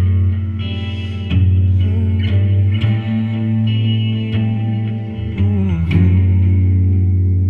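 Guitar-led rock band playing the closing bars of a song without vocals, over a held bass note. There are several strummed chords, a bent note just before the final chord lands about six seconds in, and that last chord is left to ring.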